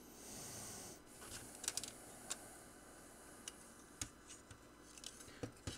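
Faint, scattered small clicks and taps of a circuit board and its plastic pin header being handled and pressed into place, with a soft brief hiss in the first second.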